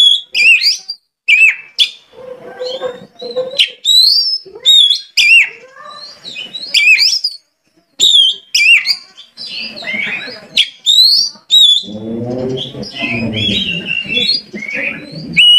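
Oriental magpie-robin singing: a rapid string of loud, clear whistled notes sliding up and down, with short gaps between phrases, and a rougher, lower passage about three-quarters of the way through.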